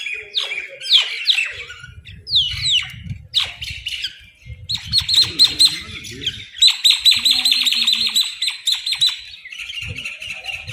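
Birds calling: short, falling chirps at first, then from about halfway a fast, rattling chatter of many rapid notes, easing to softer chatter near the end.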